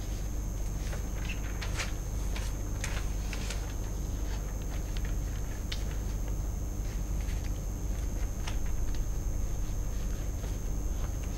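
Quiet studio room tone: a steady low hum with a thin high whine, and scattered faint clicks and ticks.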